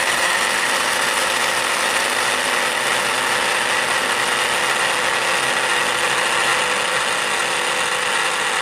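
Rommelsbacher EGK 200 blade coffee grinder's 200-watt motor running at a steady pitch, its blades chopping coffee beans during a 10-second grind. A loud, even whine over the rattle and hiss of the beans being smashed.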